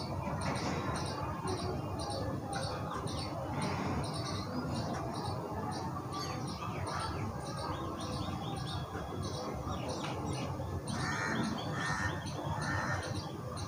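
Birds chirping over and over, about three short high chirps a second, above a steady low background hiss.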